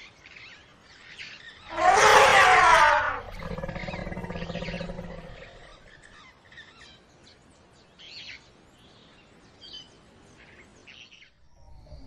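Elephant calling: a loud trumpet that falls in pitch about two seconds in, running straight into a lower rumbling roar that lasts about two seconds. Faint bird chirps follow.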